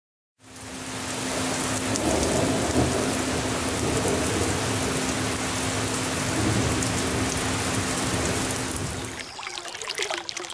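Heavy rain pouring down through trees, fading in about half a second in as a dense, steady hiss. About nine seconds in it changes abruptly to a shallow stream trickling and splashing over rocks.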